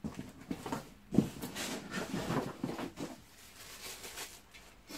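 Handling noise from unpacking: irregular rustling with scattered knocks and clicks as parts are lifted out of their packaging, one sharp knock about a second in.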